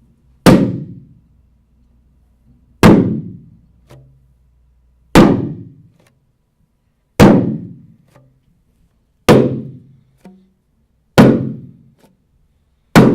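Seven loud single knocks or thumps, spaced about two seconds apart, each ringing out briefly before the next.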